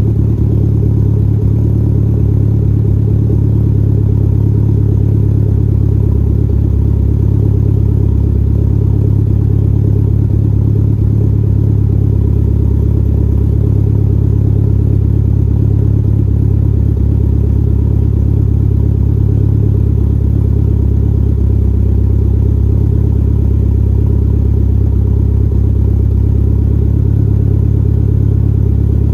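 2003 Mitsubishi Lancer Evolution VIII's turbocharged 2.0-litre 4G63 inline-four idling steadily, through a catless 3-inch turbo-back RK titanium exhaust, with GSC S1 camshafts.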